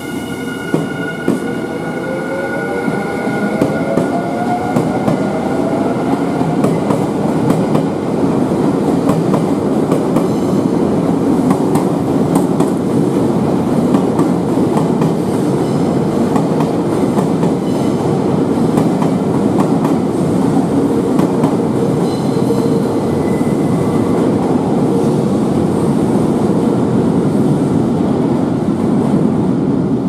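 Nankai electric commuter train pulling out and passing by. Its motors whine upward in pitch over the first several seconds, then the wheels rumble and clack steadily over the rails as the cars go past.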